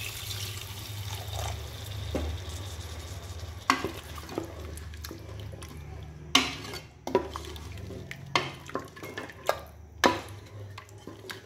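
Water poured into a pressure cooker of fried mutton masala, a steady pour for the first few seconds. After that a spatula stirs the thin gravy, knocking sharply against the pot about once a second.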